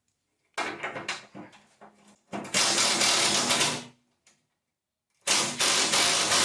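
A handheld power driver runs in two long bursts, about two seconds in and again about five seconds in, backing out the rusty fender pan bolts of a Cub Cadet lawn tractor. Short clicks and rattles of the tool and socket come before the first run.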